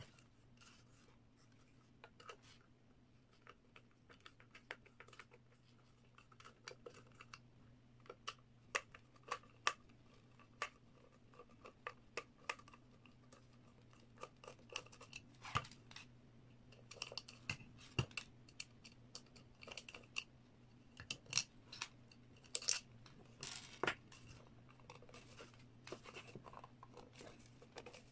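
Hands working on a small plastic siren horn: scattered clicks, scrapes and taps as a screwdriver takes out the screws of its back cover and the housing is handled and pressed together.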